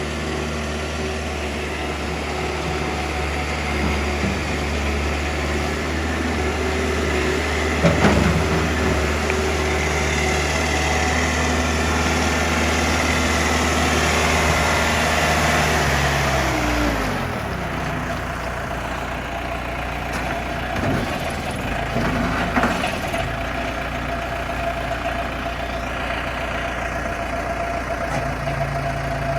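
Case 590 Super M backhoe's four-cylinder diesel engine running steadily at raised revs, then dropping back to idle about seventeen seconds in. A clunk is heard about eight seconds in, and a couple more around twenty-two seconds.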